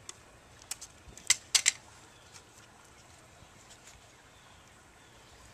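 Paper and tape being handled as a paper ring glider is folded and taped: a few short, sharp crackles and clicks in the first two seconds, then quiet room tone.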